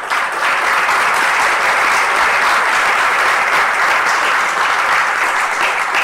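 Audience applauding: steady clapping from a room full of people at the end of a talk.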